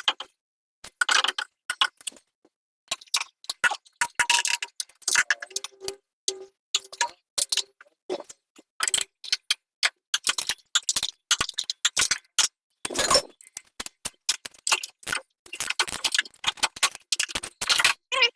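A ratchet wrench clicking in short, irregular runs, with light metallic clinks and a few brief rings from the tools and parts.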